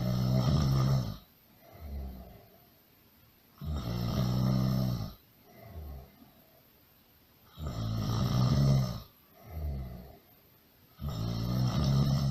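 Loud snoring in a steady cycle: a long, loud snore on each breath in about every four seconds, each followed by a shorter, quieter breath out. There are four loud snores in all.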